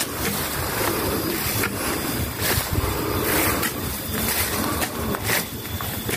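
Wind buffeting the microphone in an uneven rumble, with irregular rustling of grass and brush as the camera is carried through the vegetation.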